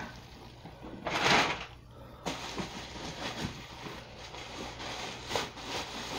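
Clear plastic packaging crinkling and rustling as a box is unwrapped by hand, with a louder swish of plastic about a second in.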